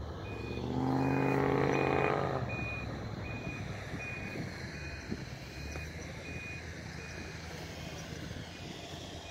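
An off-road 4x4's engine revs up hard about a second in, the loudest sound here, then settles to a steady running hum. Through it all, a short high electronic beep repeats evenly a little under twice a second, like a reversing alarm.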